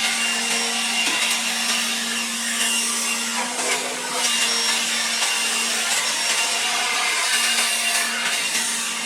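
Battery-powered leaf blower running steadily: a continuous rush of air over a steady motor hum.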